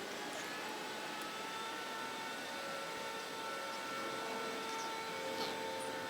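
Jet airliner engines running at a distance: a steady whine of several tones over a hiss, the lowest tone creeping slightly upward partway through.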